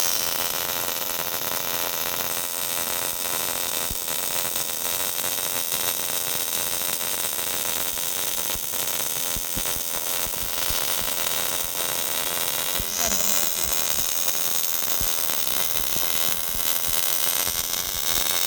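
MIG welding arc from a robot welder, a steady hissing crackle that runs without a break.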